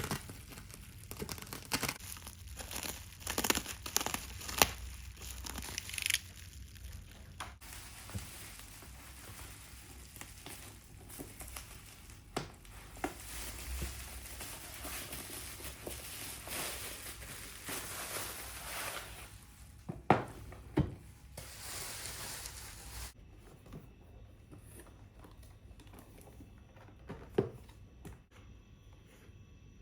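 Packaging crinkling and tearing as something is unwrapped, with scattered sharp clicks and knocks; it goes much quieter about three-quarters of the way through.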